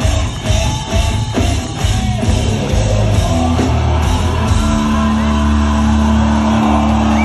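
Live rock band playing loud, with drum hits, distorted guitars and shouted vocals; about four and a half seconds in the hitting stops and a held chord rings on steadily.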